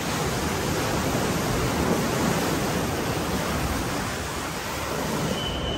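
Surf washing up onto a sandy beach: a steady rush of breaking and receding waves that swells slightly and eases.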